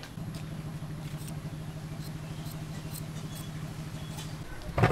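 A small engine running steadily with a low, even hum, which stops near the end, followed by one loud knock.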